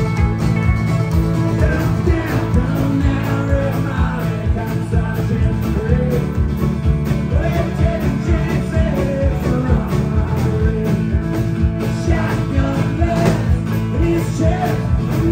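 Live country-rock band playing an instrumental break, with a bowed fiddle carrying a wavering melody over strummed acoustic guitar, mandolin and a steady drum beat.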